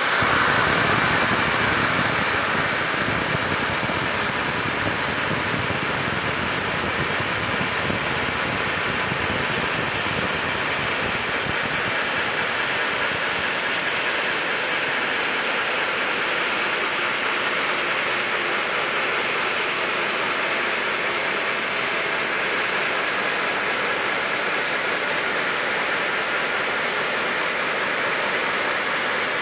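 Large diamond circular saw blade of a granite block cutter cutting through a granite block under cooling water spray: a loud, steady, high-pitched cutting noise over the rushing hiss of the water.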